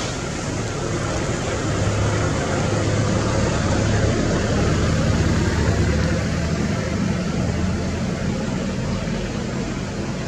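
Low motor hum from a vehicle engine, growing louder over the first few seconds and easing off toward the end, over a steady background hiss.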